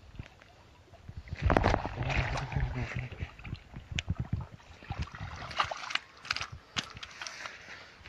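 A hooked fish splashing and thrashing in shallow river water as it is reeled in and pulled onto a stony bank, with a run of sharp slaps and splashes in the second half.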